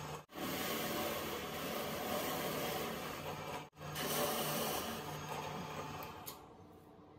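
Bench drill press running, its bit boring into an MDF panel, a steady mechanical whirr and cutting noise. It breaks off abruptly twice and drops to a much quieter level near the end.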